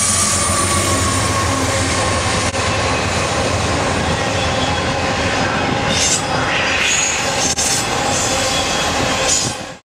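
Freight train passing close at speed, with its diesel locomotives and then trailer-carrying flatcars: a loud steady rumble and clatter of wheels on the rails. A brief higher squeal rises and falls about six seconds in. The sound cuts off abruptly just before the end.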